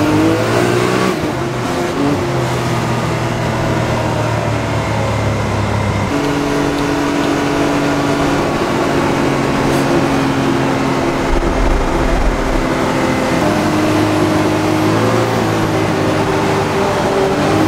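A vehicle's engine and exhaust droning at a steady pitch while under way. The drone changes pitch about six seconds in and again around thirteen seconds in.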